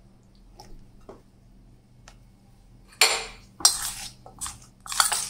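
Metal spoon scraping and clinking against a stainless steel bowl while tossing batter-coated potato strips. A few faint clicks come first, then four or so louder scrapes from about three seconds in.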